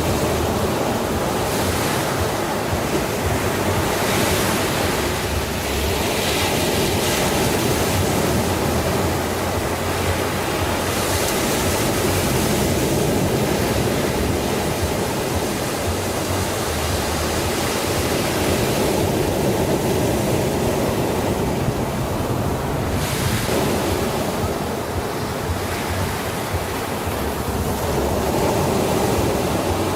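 Sea waves washing in and breaking: a steady rush of surf that swells and falls back every few seconds.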